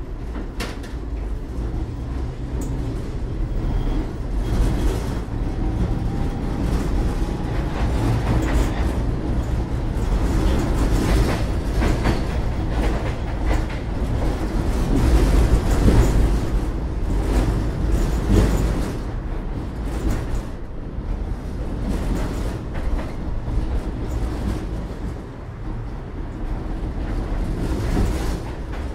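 Tatra T3 tram heard from inside the passenger car as it picks up speed and runs along the track: a steady low rumble of wheels and running gear, with frequent clicks and knocks from the rails and joints. It grows louder over the first few seconds, then stays steady.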